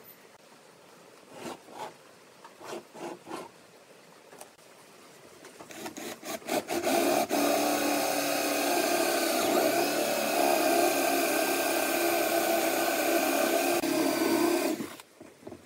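Cordless drill with a long auger bit boring down into wood, starting about six seconds in and running steadily before stopping sharply near the end. Before it come a few light knocks.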